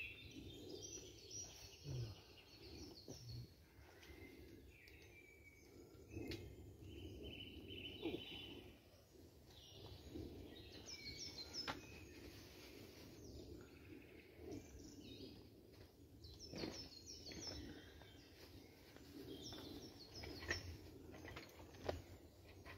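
Woodland birdsong: several birds singing short, repeated chirping phrases, some falling in pitch, over a faint background hush. Now and then there are a few sharp clicks and soft rustles.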